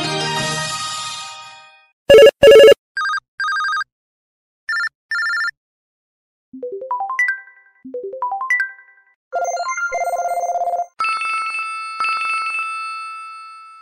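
A series of LG eXpo phone ringtones played one after another: the end of a melodic tune fading out, then two loud beeps, two pairs of electronic tones, two rising four-note arpeggios, a trilling tone and a sustained chime that fades away.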